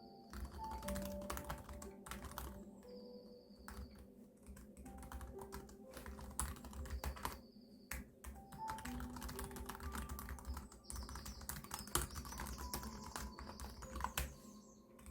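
Typing on a keyboard: a steady run of quick, irregular key clicks, over soft background music of held notes.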